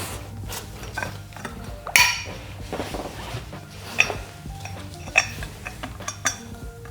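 A wrench and socket working the big bolts of a Volvo five-cylinder engine block, with several sharp, ringing metal-on-metal clinks; the loudest comes about two seconds in.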